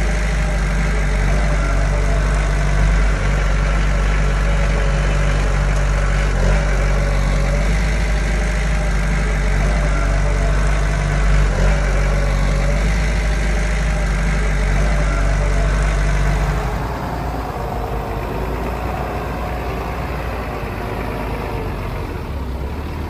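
Heavy construction machinery's diesel engine running steadily with a deep rumble. About two-thirds of the way through, the deep rumble drops away abruptly and a lighter engine sound continues.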